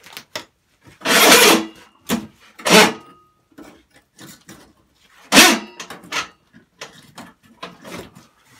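Irregular scraping and rubbing noises with scattered light knocks. Three louder, longer scrapes come about a second in, near three seconds, and just past five seconds.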